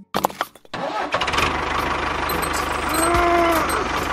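A motor starts up about a second in and then runs steadily with a fast, even low pulse. Around three seconds in, a tone rises and falls once.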